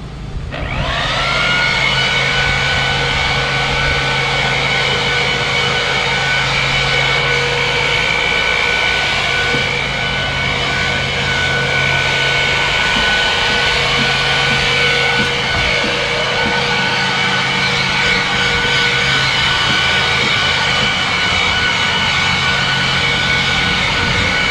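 Leaf blower throttling up, its whine rising in pitch within the first second, then running steadily at high speed with a high whine over a rush of air. It is blowing fine polymeric sand dust off the brick surface after the joints have been swept in.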